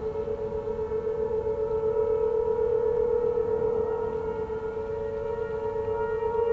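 Several outdoor warning sirens sounding a steady alert tone together from different distances, their overlapping pitches holding steady and gently pulsing in loudness as the rotating sirens sweep around.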